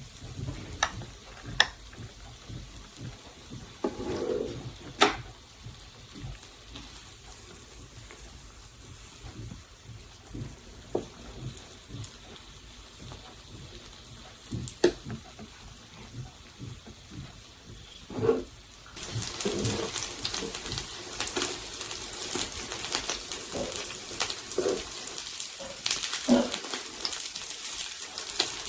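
Food frying quietly in a pan, with occasional sharp clinks and knocks of a utensil. About two-thirds of the way through, a much louder rush of running water starts suddenly and continues.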